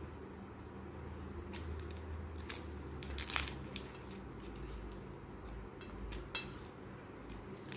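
Scattered short clicks and scrapes of dry outer sheath layers being peeled and cut off shevla (dragon stalk yam) stalks with a small knife, over a low steady hum.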